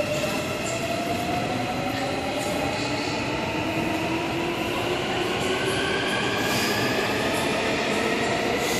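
Electric train pulling out of an underground station, its traction motors whining in several tones that climb steadily in pitch as it gathers speed, over the rumble of the wheels on the rails.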